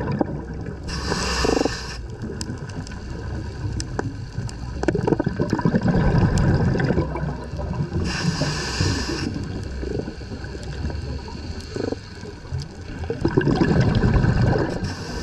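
Underwater sound of a diver's breathing: a short hiss about every seven seconds, with rumbling, gurgling bubbles swelling between them, over water moving past the camera.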